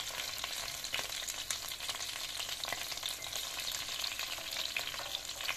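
Cornflake-breaded chicken nuggets sizzling and crackling in hot vegetable oil in a frying pan. Wooden spatulas scrape and tap against the pan as the pieces are turned and lifted out.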